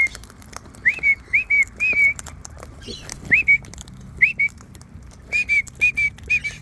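A series of about ten short whistles, each a quick upward swoop followed by a brief level note, some coming in quick pairs, with faint clicks between them.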